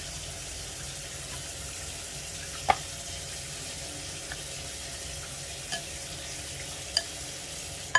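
Metal spoon stirring yogurt into chickpea chaat in a glass bowl, with a few sharp clinks of spoon on glass, the loudest about three seconds in, over a steady background hiss.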